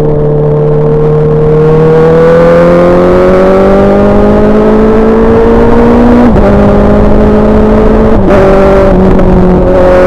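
2019 Honda CBR650R inline-four through an SC Project SC1-R exhaust, pulling with the pitch slowly rising. The pitch drops abruptly with a short crack about six seconds in and again about eight seconds in, as quickshifter upshifts go through, with wind rushing over the microphone.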